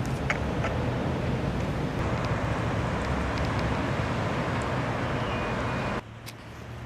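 Steady outdoor background noise with a few faint ticks in it. It drops abruptly about six seconds in.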